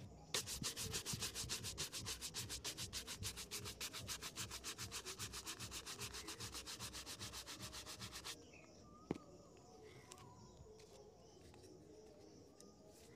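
A stiff-bristled shoe brush scrubbed rapidly back and forth over a leather shoe, in quick, even strokes several times a second for about eight seconds, then stopping. A single sharp click follows about a second later.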